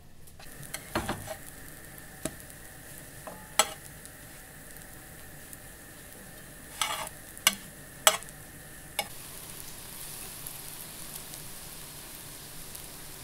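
Pancakes frying in oil in a frying pan, with a steady sizzle. A spatula clicks and scrapes against the pan several times in the first nine seconds as the pancakes are turned.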